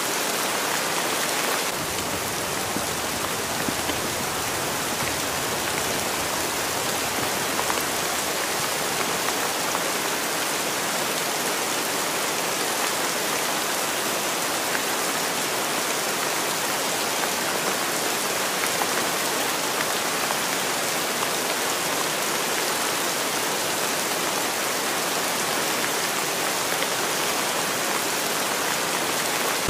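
Steady rain falling, an unbroken hiss of many drops with no change in strength.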